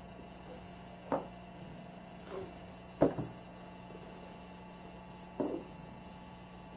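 Four separate sharp clicks and knocks, a second or two apart, the third the loudest, of a metal quick-connect test coupling being handled and fitted onto a valve.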